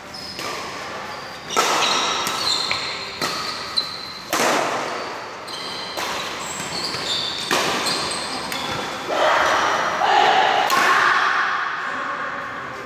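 Badminton rally: rackets striking the shuttlecock in a series of sharp hits at uneven intervals, with shoes squeaking on the court floor, echoing in a large hall.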